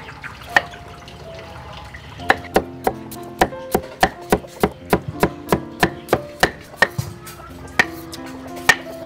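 Knife slicing a peeled yacon root on a wooden chopping board: sharp, even chops about three a second for several seconds starting about two seconds in, with a few single chops before and after. Soft background music runs underneath.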